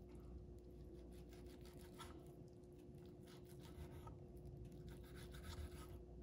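Faint scraping and clicking of a small knife cutting through raw beef steak and touching a wooden cutting board, in many short strokes, over a steady faint hum.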